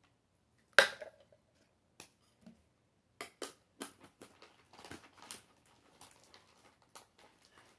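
Handling noises of a plastic mini blender cup and a bag: one sharp plastic click about a second in, then a run of smaller clicks and crinkling rustles.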